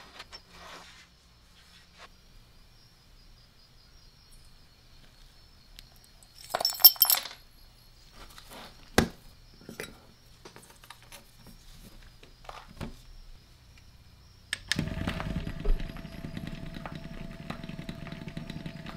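Small steel screws and hardware clinking into a metal rock tumbler drum, then a few sharp clicks as the drum is closed. Near the end the Dan&Darci rock tumbler starts and runs: a steady motor hum with the rumble of the turning drum, which holds the hardware in sand to strip it.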